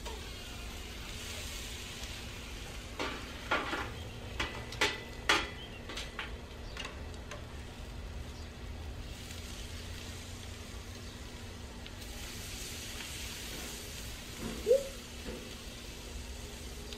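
Food sizzling on a grill, with a run of sharp clicks and clanks between about three and seven seconds in, and one short rising squeak near the end.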